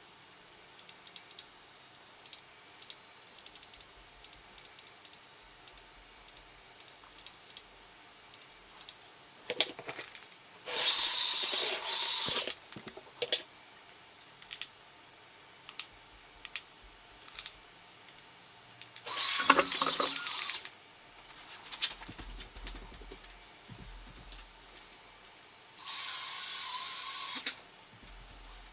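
A small indoor racing drone's propellers whirring in three short bursts of about two seconds each, with light clicks and taps of handling in between.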